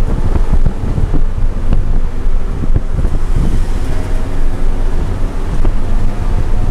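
Inside the cabin of a BMW E90 330i track car at speed: its straight-six engine running steadily under load, with loud low-pitched road and wind noise.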